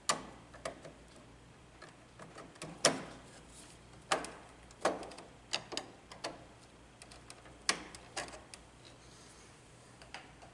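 Screwdriver working the terminal screw of a single-pole 20 amp Square D circuit breaker, tightening the black wire under it: about a dozen irregular, sharp metallic clicks and taps.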